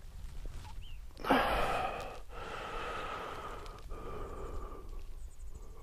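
A person breathing heavily: a sharp, loud breath about a second in, then long airy breaths with two short pauses.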